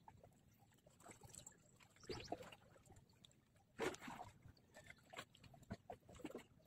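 Faint, irregular small splashes of seawater lapping against the shore, the most distinct about two seconds in and about four seconds in.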